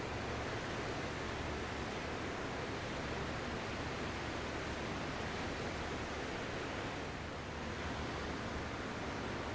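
Ocean surf: a steady, even rush of breaking waves, easing slightly about seven seconds in.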